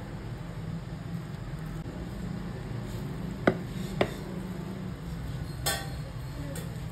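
Wooden spoon stirring thick onion pakora batter in a glass bowl, knocking twice against the bowl about three and a half seconds in and giving a brighter, ringing clink against the glass near the end, over a steady low hum.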